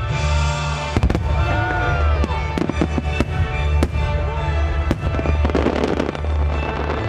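Aerial fireworks shells bursting in a run of sharp bangs over steady music, with a stretch of crackling about five and a half seconds in.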